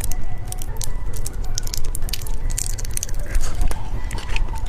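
Close-miked crackling and clicking of a surprise-egg candy and its plastic packaging being handled and opened, many small sharp crackles over a steady low hum.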